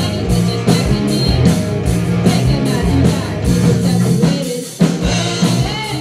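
A rock band playing live: electric guitars over a steady drum-kit beat with cymbals.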